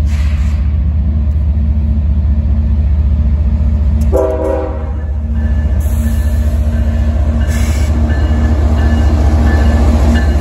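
Lead locomotive of a diesel freight train, a CSX GE ES44AH with a V12 engine, passing at close range, its engines running with a steady, pulsing rumble. The horn sounds once, for about a second, about four seconds in.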